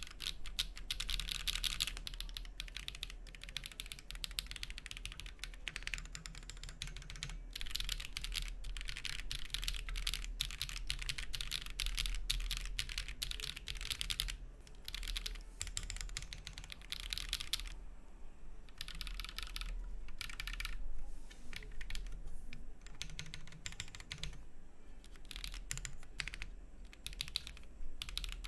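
Rapid, continuous typing on a Monsgeek M1 aluminium 75% mechanical keyboard, a sound test of one of its build configurations. The typing eases off briefly about two-thirds of the way through, and a faint steady low hum runs underneath.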